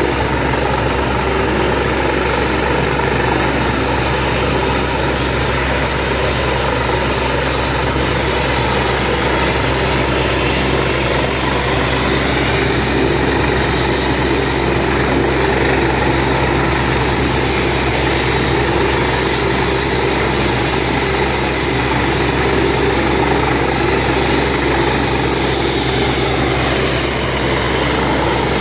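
Helicopter running on the ground with its rotors turning, a steady, unchanging engine-and-rotor sound with a thin high whine over it.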